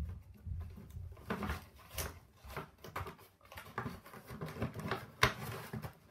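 Plastic and cardboard packaging of a Hot Wheels multi-car pack being pried open by hand: irregular crinkles and small clicks, with one sharper click about five seconds in.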